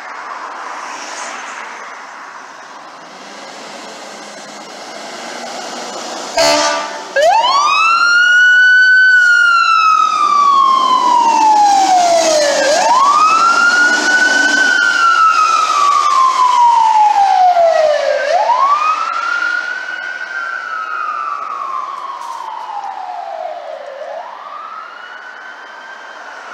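Fire engine siren wailing, rising quickly and falling slowly about every five and a half seconds, fading over the last few cycles. A short, loud horn blast comes just before the wail starts, about six seconds in.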